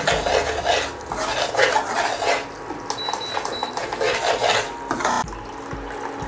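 Metal slotted spoon stirring and scraping a thick ghee-and-sugar halwa in a stainless steel pan, in quick rhythmic strokes. The strokes grow lighter and stop about five seconds in.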